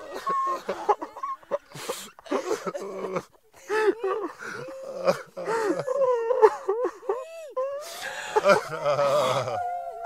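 A group of men and women crying together: overlapping sobs and wavering, rising-and-falling wails, broken by short noisy breaths.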